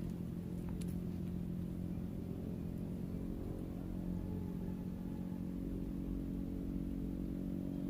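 An engine running steadily at a constant speed: a low hum that holds the same pitch throughout.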